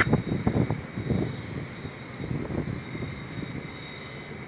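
Jet airliner engines rumbling, louder in the first second and then settling lower, with a faint steady high whine.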